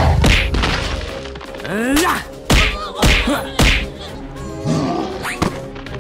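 Cartoon sound effects: a low rumble, then a run of about five whacks and thuds, mixed with short cries that slide in pitch, over background music.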